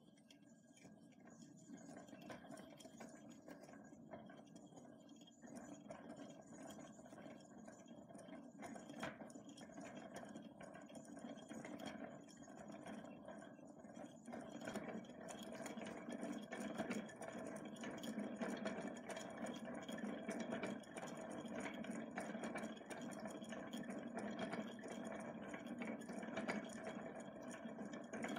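Hand-cranked zaguri reel running: its metal gears whir and clatter as the wooden frame spins, winding thread onto it. The sound grows louder about halfway through.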